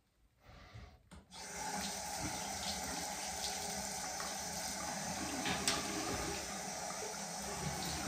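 Bathroom tap turned on and running steadily into the sink, starting with a short burst and a click about a second in before settling into a constant flow.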